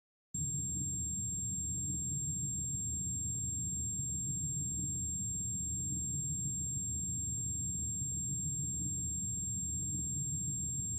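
A steady low rumble with a thin, constant high-pitched whine held over it, cutting in suddenly just after the start.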